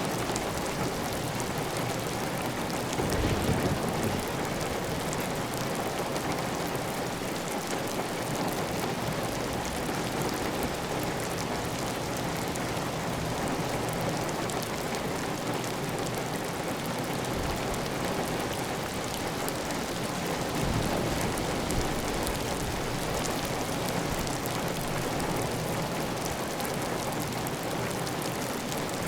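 Steady heavy rain falling on a clay tile roof, with water running off the roof edge. A brief deeper swell comes about three seconds in and again about twenty seconds in.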